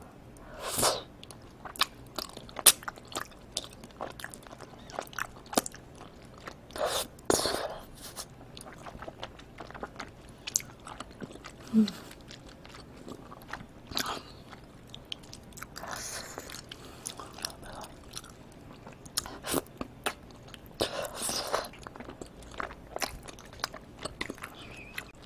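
Close-miked eating of tteokbokki, chewy rice cakes in thick spicy sauce: sticky, wet chewing and mouth clicks throughout, with a few longer wet slurps as sauce-coated pieces are drawn into the mouth.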